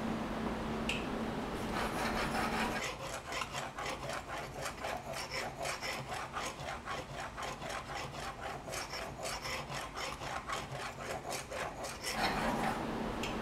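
Steel plane iron honed on a soft Arkansas oil stone: quick, even back-and-forth scraping strokes, about four a second, from about three seconds in until near the end. A steady low hum comes before and after the strokes.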